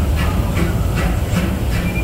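Disneyland Railroad train running through a tunnel behind the steam locomotive E.P. Ripley: a steady low rumble from the cars on the track, with a regular beat about three times a second.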